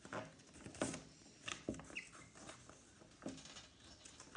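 Faint scattered rustling and light taps, about half a dozen short sounds, with a brief high squeak about two seconds in.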